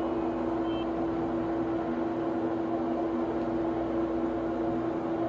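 Steady machine hum at one fixed pitch over a soft even hiss, unchanging throughout.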